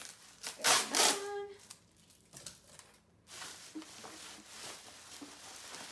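Plastic bubble wrap crinkling and rustling as it is cut open with scissors and pulled apart. It comes in a loud burst about a second in, then settles to quieter crinkling.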